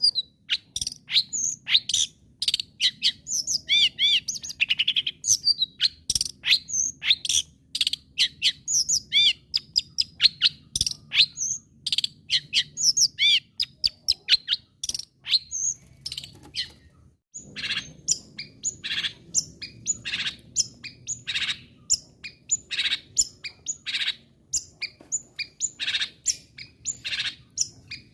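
Long-tailed shrike in full song, a fast, varied run of high chirps and short trills. After a brief break about two-thirds of the way through, the song turns to sharp notes repeated at an even pace, about one to two a second.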